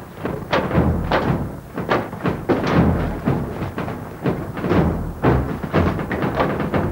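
Many booted feet clattering down a steel fire-escape staircase with perforated metal treads: a rapid, irregular run of thuds and clangs, several a second.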